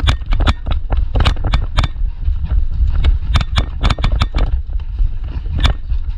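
A rapid, irregular string of sharp clicks and knocks over a steady low thumping rumble, several a second and unevenly spaced.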